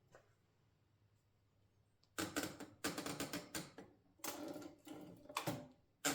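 Mercedes Model 8 typewriter being handled: a run of irregular mechanical clattering and clicking that begins about two seconds in.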